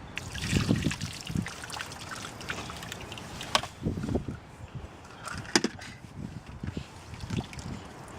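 Water sloshing and trickling as rainwater is scooped out of a puddle in wet sand, with irregular scrapes and a few sharp knocks, the loudest about three and a half and five and a half seconds in.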